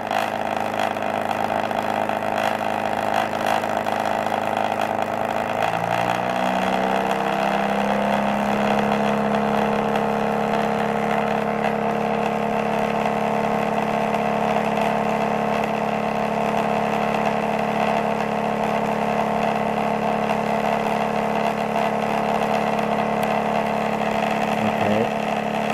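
Homemade pulse-motor generator (two magnet rotors spinning past coils) running with a steady machine hum of several tones. About six seconds in the pitch rises over two or three seconds and holds higher as the rotors speed up with more input power, the current draw rising with it.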